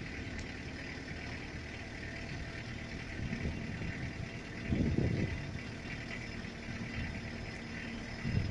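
An engine idling steadily, with brief louder low rumbles about halfway through and again at the end.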